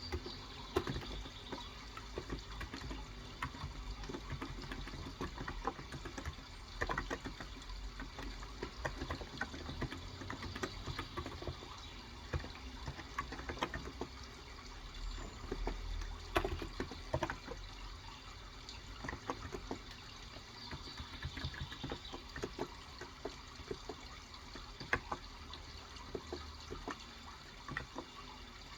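Irregular typing on a Cox Endeavor electro-capacitive (topre-style) tenkeyless keyboard with 35 g switches, the keystrokes soft and quick, over a steady trickling-water background.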